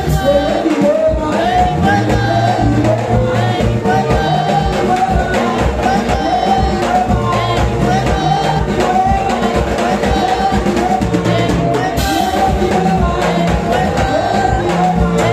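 Amplified praise and worship singing: voices sing a melody through microphones over music with a steady beat and bass.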